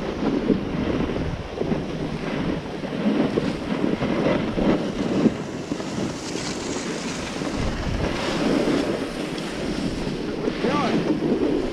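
Wind rushing over the microphone while skiing downhill, mixed with the swishing scrape of skis on packed snow, swelling and easing as the turns come.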